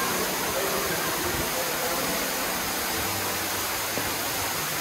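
Steady rushing of water from Ruby Falls, the underground waterfall inside the cave, falling into its pool with an even, unbroken roar.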